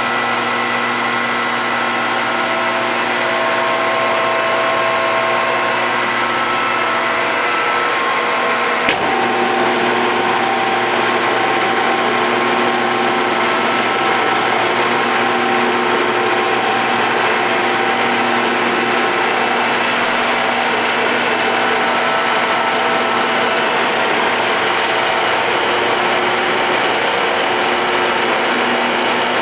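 Mollart A175 CNC twin-spindle gun drill running: a steady machine hum with several held tones. A single sharp click comes about nine seconds in, after which the tones change pitch and stay steady again.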